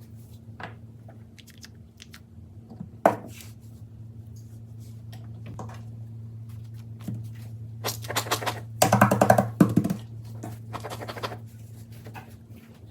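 Plastic fidget toys being handled: scattered clicks and taps, one sharp click about three seconds in, and a dense run of rattling clicks about eight to ten seconds in, over a steady low hum.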